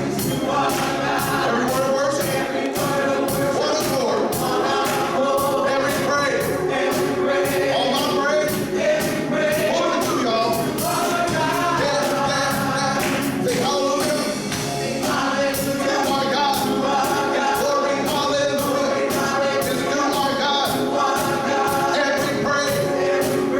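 Gospel choir singing with band accompaniment and a steady beat of percussion.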